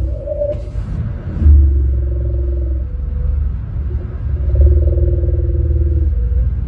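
Strange low droning noise coming over a radio: deep, pulsing rumbling tones held for a second or two at a time, with a brief burst of hiss about a second in.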